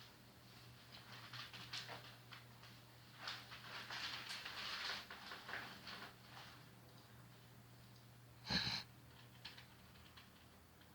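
A sleeping boy snoring: a long noisy breath lasting about five seconds, then a short, louder snore about eight and a half seconds in.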